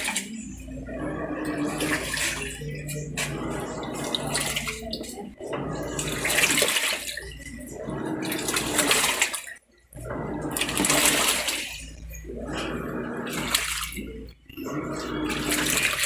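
Panasonic 7 kg top-load automatic washing machine agitating a load of laundry in water: water and clothes slosh in surges every couple of seconds as the pulsator turns one way and then the other, over the motor's hum. It is running with new suspension rods holding the tub up, so the motor no longer scrapes the bottom of the cabinet.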